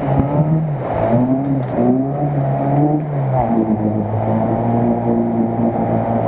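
Lada Niva's engine revving under load as the car ploughs through deep mud, the engine note falling and rising again several times.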